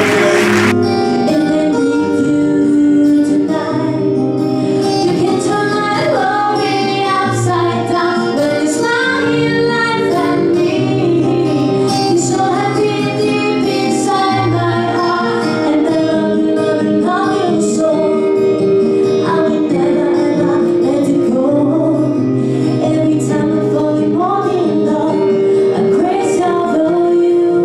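A woman singing into a microphone over musical accompaniment, her voice wavering with vibrato on held notes. Applause from the hall cuts off within the first second.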